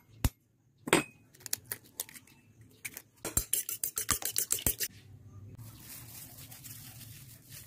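An egg cracked on the edge of a ceramic bowl with two sharp taps, then a fork beating the egg in the bowl, clinking rapidly against the ceramic for about a second and a half. A fainter, steady rustle of handling follows near the end.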